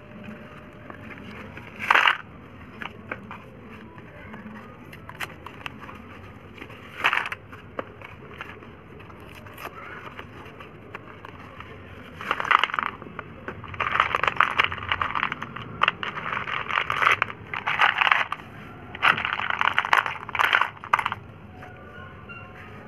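Chandtara brand slate pencils tipped out of small cardboard boxes, clattering and rattling onto a heap of slate pencils in a plastic tray, with cardboard rustling as the boxes are handled. There are two short rattles early on, then a long run of pours in quick bursts through the second half.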